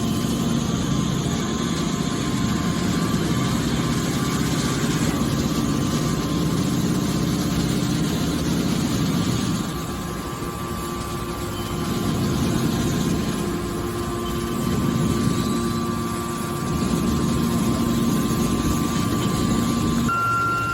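Hydraulic scrap-steel baler running: the steady hum of its motor and hydraulic pump, easing off briefly a couple of times midway and then picking up again.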